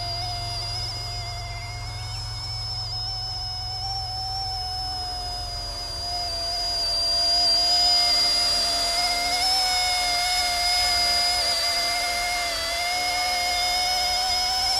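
RC ERA C123 EC135 scale RC helicopter in flight: its dual brushless direct-drive motors and rotors give a steady high whine that wavers slightly in pitch, growing a little louder about halfway through.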